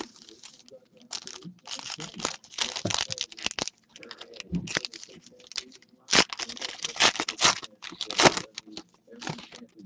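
Foil trading-card pack wrappers crinkling and being torn open by hand, in irregular bursts of rustling, loudest near the end.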